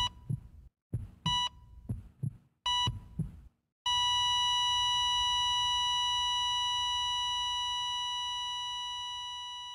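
Heart-monitor sound effect: three short electronic beeps about 1.3 seconds apart over heartbeat thumps, then a long steady flatline tone, just under four seconds in, that slowly fades away.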